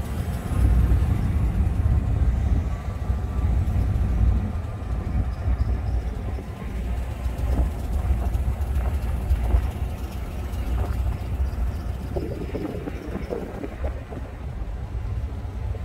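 Car driving slowly along a street: a steady low rumble of engine and tyre noise.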